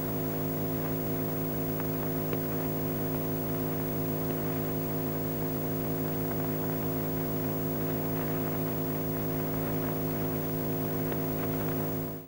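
Steady electrical mains hum and buzz over a constant hiss, unchanging in pitch and level, which stops abruptly near the end.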